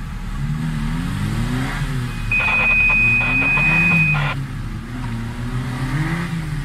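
Suzuki SJ/Samurai 4x4's engine revving up and dropping back several times, as on a slow off-road crawl. About two seconds in, a steady high-pitched tone sounds for about two seconds.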